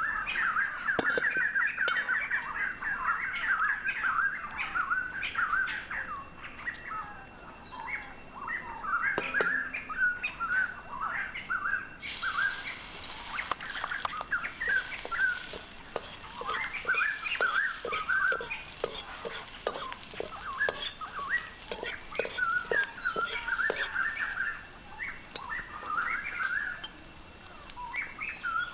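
Birds chirping steadily throughout. From about twelve seconds in, a faint sizzle of garlic and chili frying in a steel wok joins them, with a run of quick light clicks of a utensil stirring and tapping against the wok.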